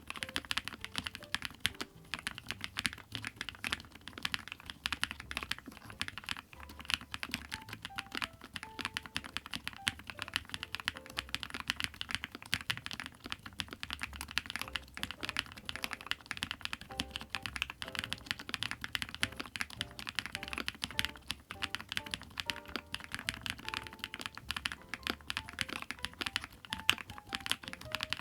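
Continuous fast typing on a ZONEX 75, a 75% aluminium gasket-mount mechanical keyboard: a dense, steady stream of keystroke clacks, with soft background music underneath.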